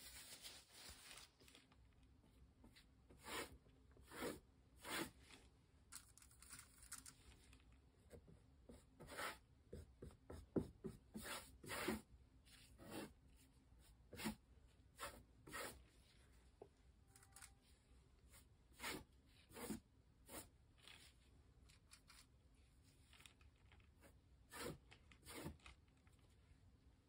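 Short, faint scratchy strokes of a paint applicator worked against the painting's surface, a couple of dozen at uneven intervals, bunched most closely about halfway through.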